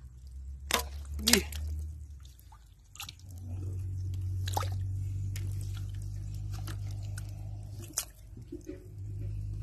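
Hands squelching and slapping in wet mud, with several sharp wet smacks, over a steady low rumble.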